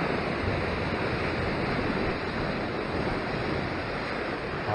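Steady rush of sea surf washing against rocks, with wind noise on the microphone.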